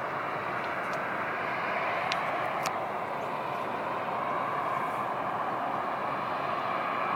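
Jet airliner engines at an airport, a steady rushing noise, with a couple of faint ticks a few seconds in.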